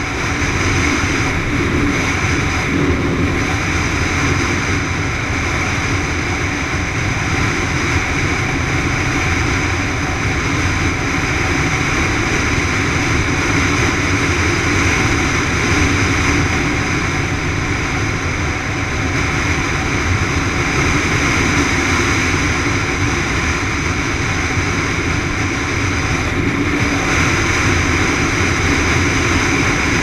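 Motorcycle engine running steadily at cruising speed on a dirt road, with wind rushing past.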